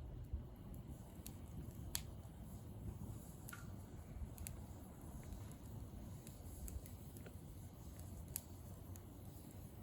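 Wood fire crackling, with irregular sharp pops and snaps about once a second over a low steady rumble.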